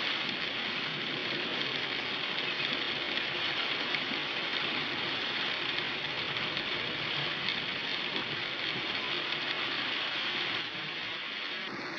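Heavy rain striking a car's windshield, heard from inside the car: a dense, steady hiss that drops a little near the end.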